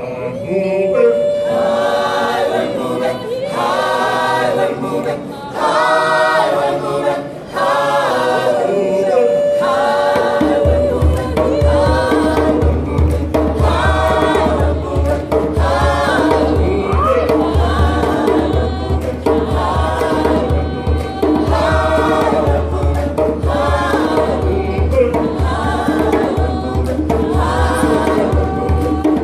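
Mixed choir of men and women singing traditional South African songs in harmony. About ten seconds in, a deep pulsing beat joins under the voices and continues.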